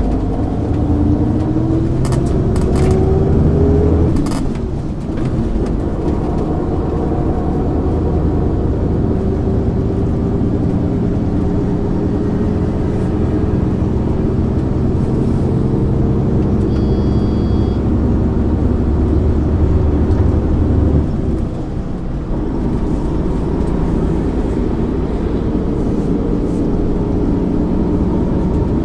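1999 MAN ÜL 353 intercity bus heard from on board, its diesel engine pulling under load: the note rises for the first few seconds, drops briefly at a gear change, then pulls on steadily with another short dip about three quarters of the way through. A short electronic beep sounds around the middle.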